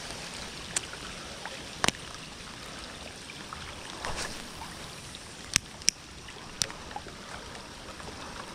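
Steady rain hiss with a few scattered sharp ticks, irregularly spaced.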